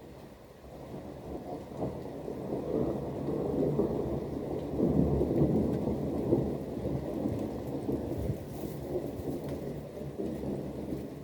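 A long roll of thunder with rain: a deep rumble that builds over the first few seconds, is loudest about halfway through, then slowly dies away.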